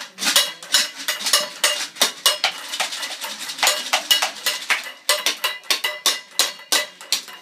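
Toy percussion being banged unevenly, about three hits a second: a drumstick striking a small tambourine with metal jingles and a child's sticks tapping a toy xylophone, clattering and clinking.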